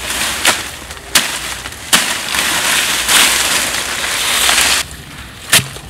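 Leafy undergrowth rustling and brushing close by for about three seconds in the middle, with a few sharp snaps or knocks before and after.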